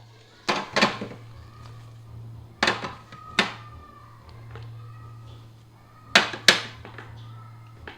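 Sharp knocks and clunks of containers and items being set down and moved in a fridge, coming in three pairs, each pair about half a second apart, over a steady low hum.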